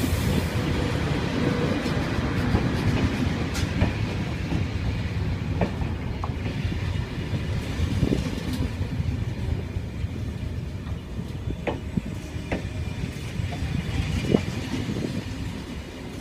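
Train running on the rails: a steady low rumble with occasional sharp clicks and knocks.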